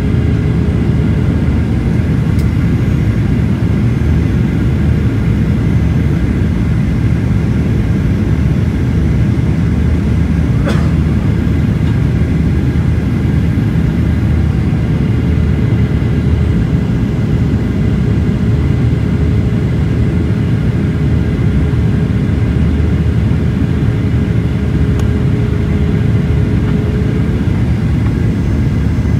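Airliner cabin noise heard from a window seat: a steady rumble of engines and airflow, with a faint steady whine over it. A brief click sounds about eleven seconds in.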